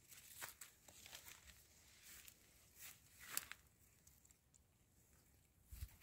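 Mostly near silence, with a few faint crackles and rustles of dry leaves and plant litter, the loudest about three and a half seconds in.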